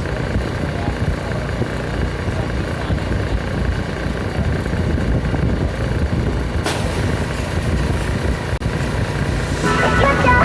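An engine running steadily, with a low rumble. Guitar music comes in near the end.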